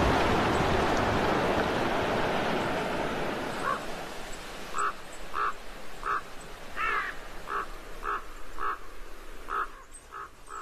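A snow avalanche rushing down a slope: a loud, steady rush that fades away over the first three to four seconds. Then a series of about a dozen short, evenly spaced animal calls follows, roughly one every half second.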